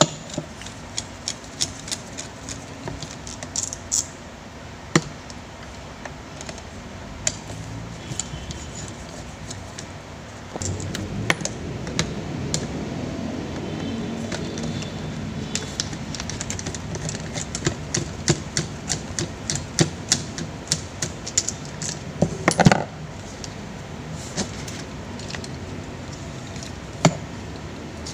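Small metal and plastic clicks and taps as an electric fan motor is taken apart with a screwdriver, coming irregularly throughout. A louder knock a little past two-thirds in, over a steady low rumble that grows louder about ten seconds in.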